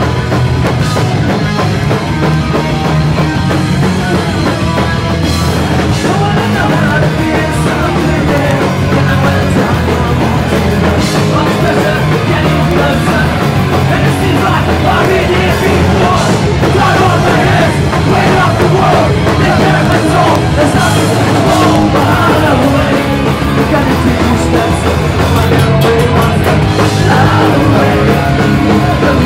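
Live punk rock band playing loud: electric guitars and a drum kit with shouted vocals over them, heard from in front of the stage.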